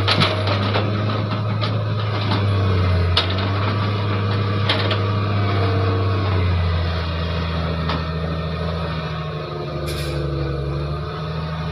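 Hitachi Zaxis 225USR excavator's diesel engine running under heavy hydraulic load as its grapple lifts a huge log, labouring with a weight it can barely raise; the engine note eases a little after about six seconds. A few knocks of the log against the grapple, and a short hiss about ten seconds in.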